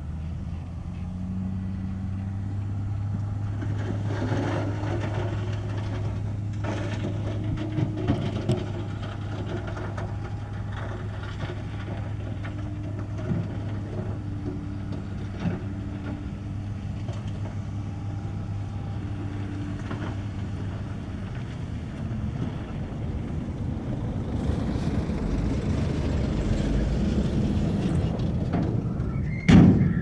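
Heavy diesel engine of construction machinery running steadily, with a few metallic knocks and one loud bang near the end.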